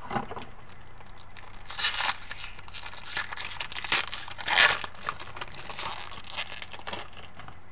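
A trading-card pack wrapper being torn open and crinkled by hand. There is dense crackling from about two seconds in until near the end.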